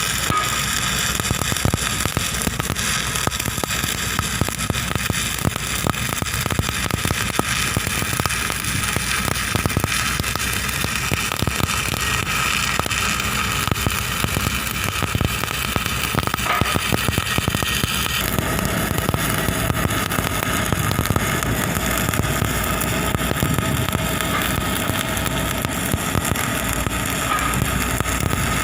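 Electric arc welding: the arc crackles and sizzles steadily, with a steady hum beneath it. The sound's character shifts about 18 seconds in.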